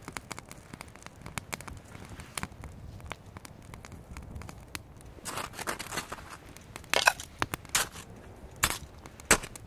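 Small twig fire crackling faintly in a Firebox stove, the damp wood smoking as it catches. In the second half come several loud, sharp crunches and clicks as the sticks and the pot are handled in the snow.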